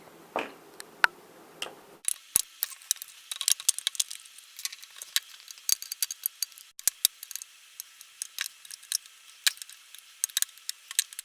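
Quick, irregular small clicks and ticks of a screwdriver working screws out of a plastic light housing. After about two seconds the sound turns thin and bright, with a rapid run of ticks.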